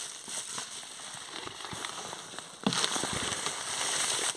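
Rustling and crackling of a campervan's insulated window cover being handled near the microphone, with many small crinkly clicks. It gets louder about two and a half seconds in.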